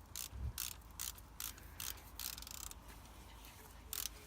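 Socket ratchet clicking in short strokes as a water pump bolt is driven into the engine block, with a brief lull a little after the middle.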